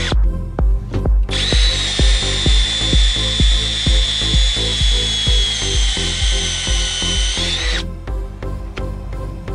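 Cordless drill driving a flaring tool's cone into copper tubing: the motor stops briefly, starts again about a second in, runs with a steady whine for several seconds and stops near the end. Background music with a steady beat plays underneath.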